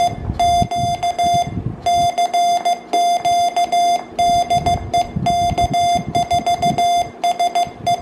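Morse code sidetone from a YouKits HB-1B QRP transceiver: a steady beep keyed on and off in short dits and longer dahs as a small Teneke paddle key is worked, with uneven gaps typical of a beginner's sending.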